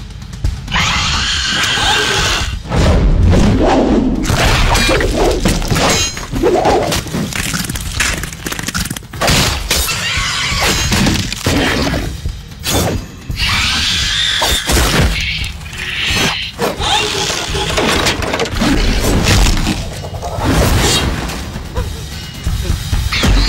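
Dramatic film score mixed with repeated crashes and shattering impacts, with heavy low thuds throughout.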